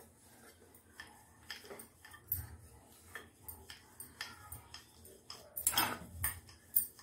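Light, irregular clicks and taps of a wooden rolling pin and hands against a metal rolling board as flour-dusted dough is rolled out, with a louder cluster of knocks about six seconds in.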